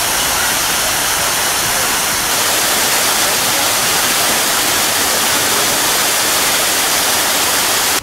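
Waterfall pouring down a rock face into a pool: a steady rush of falling water, a little louder after about two seconds.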